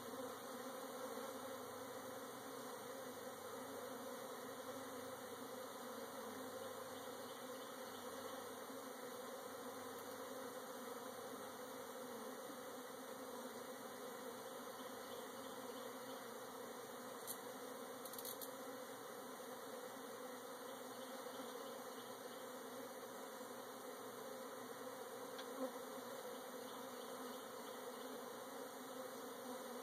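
Honey bees buzzing in a steady hum around an open hive, a freshly cut-out colony being installed in a new box. A couple of small clicks sound about two-thirds of the way through and once more near the end.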